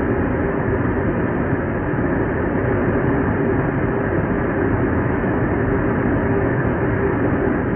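Steady roar of a jet aircraft in flight, engine and airflow noise with no change in level or pitch.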